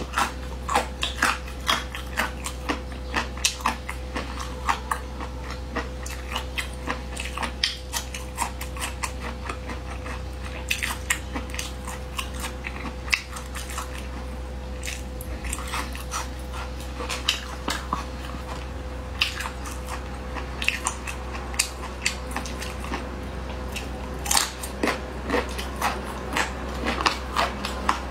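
Close-up biting and chewing on spicy braised duck feet: wet crunching and frequent sharp clicks of teeth and cartilage, over a steady low hum.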